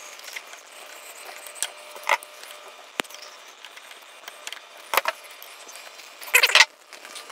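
A few separate light metallic taps and clicks as pliers work the wrist pin out of a two-stroke motorcycle piston, then a short metallic rattle about six seconds in.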